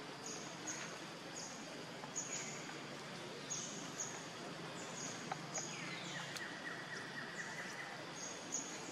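Forest ambience of birds and insects: a short high chirp repeats about every half second over a steady hiss. About six seconds in, a call falls in pitch and levels into a steady buzzing note that lasts about two seconds.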